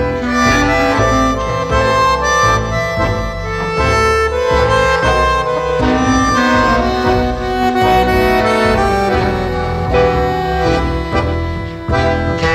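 Instrumental passage of a contemporary Latin tango song, with accordion carrying the melody over the band and a steady low bass line.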